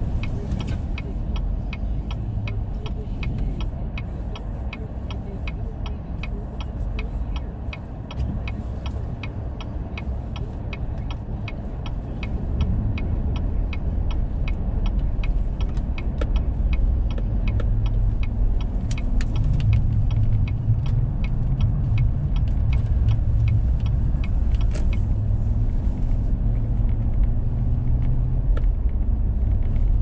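Car cabin: the turn-signal indicator ticking steadily over the low rumble of the engine and tyres. The ticking stops a little past halfway, and the rumble then grows louder as the car speeds up on the snow-covered road.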